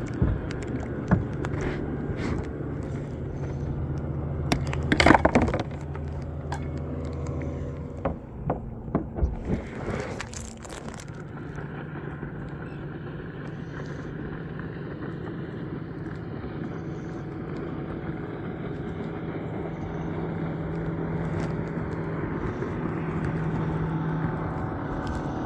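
Steady drone of a motorboat engine running out on the water, its pitch shifting about a third of the way in. Sharp knocks and scrapes of gear being handled on the kayak about five seconds in, with smaller ones a few seconds later.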